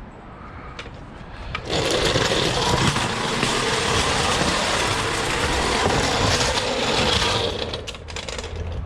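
A small motor or engine runs steadily for about six seconds, starting abruptly and fading out near the end.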